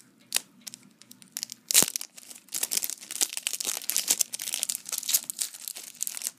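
Foil trading-card booster pack wrapper crinkling and tearing as it is opened by hand: a dense run of sharp crackles, the loudest a single snap about two seconds in.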